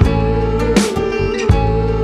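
Background music: a guitar-led tune over a steady beat, with a hit about every three-quarters of a second.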